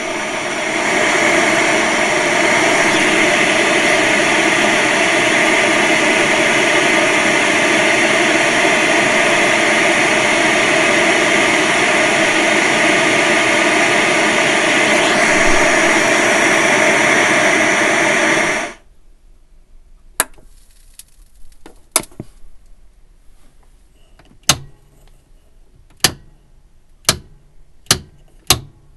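Old tube television's static, a loud steady hiss that swells up at the start and cuts off suddenly about 19 seconds in. After it come sharp, irregularly spaced clicks that come closer together toward the end.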